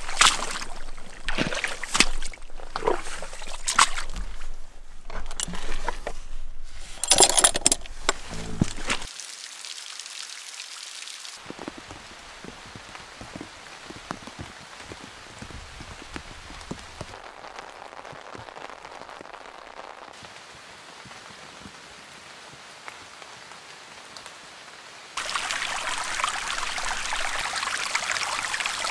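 Boots squelching and splashing through wet mud, step after step, for the first nine seconds or so. Then a quieter steady hiss of rain, and about 25 seconds in a louder, steady rush of shallow water running over stones.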